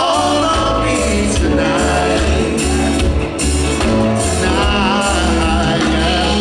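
Live R&B band playing: bass, drums and keys under a steady groove, with a voice singing over it.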